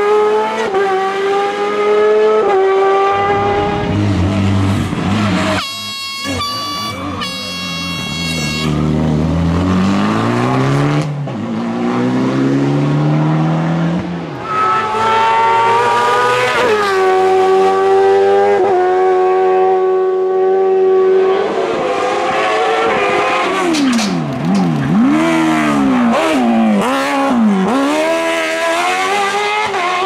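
Race car engine at full throttle on a hillclimb, revs climbing in steps through upshifts. Near the end the pitch repeatedly drops and jumps back up as the car downshifts with throttle blips into corners.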